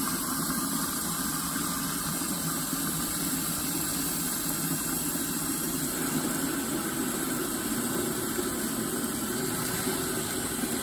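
Water from a garden hose nozzle running steadily into a large glass jar of compost mix, filling it with water.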